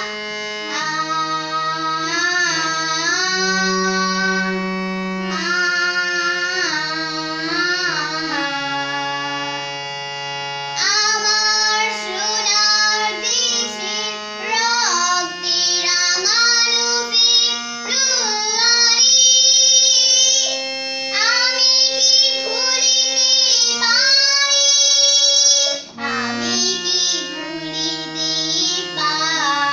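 A young girl sings a Bengali song, accompanying herself on a harmonium. The harmonium reeds hold steady notes beneath her melody.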